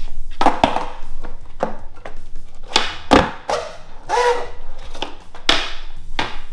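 A series of about a dozen irregular sharp knocks and scrapes, some with a short ring after them.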